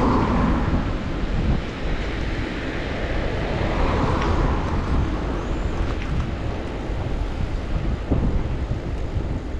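Wind buffeting the microphone of a bicycle-mounted camera while riding: a steady low rumble, swelling near the start and again about four seconds in.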